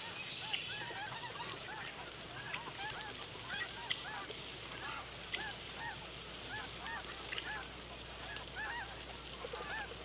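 A large flock of geese honking, with many short calls overlapping without a break.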